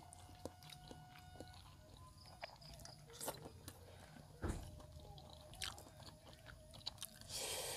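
Faint sounds of people eating rendang: chewing, with scattered small clicks and taps. There is a soft knock about halfway through and a short, louder rush of noise near the end.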